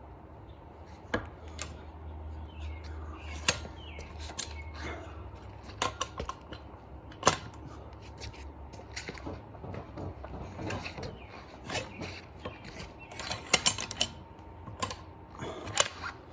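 Irregular metallic clicks and knocks of hand tools on a large axle hub bolt as it is worked loose, with a few louder knocks near the end.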